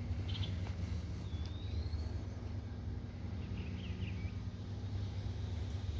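A few short bird chirps and one rising whistled note, about a second and a half in and again around the middle, over a steady low rumble.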